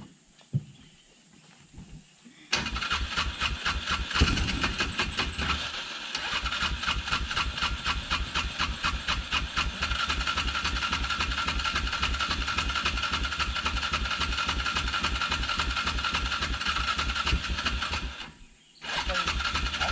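Old Polaris Ranger UTV engine starting about two and a half seconds in and running unevenly, with a dip about six seconds in and a short cut-out near the end before it picks up again. It has trouble staying running, which the owner puts down to a dirty spark plug.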